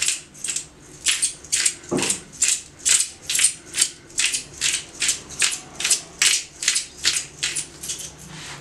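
Hand-twisted pepper mill grinding black peppercorns: a steady run of grinding strokes, about two and a half a second, that stops near the end.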